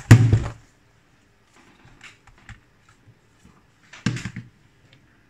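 Plastic-cased portable hard drive knocked onto a wooden desk as it is handled: a heavy thud with a short rattle, a few light plastic clicks, then a second, smaller thud about four seconds in.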